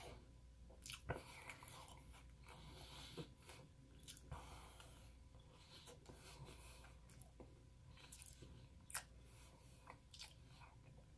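Faint chewing of an almond cookie, with a few soft crunches and clicks, the sharpest about a second in and again near nine seconds.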